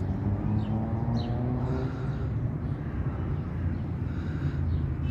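Steady low rumble of road traffic, with one vehicle's engine tone rising for a second or so about half a second in, and a few short high chirps near the start.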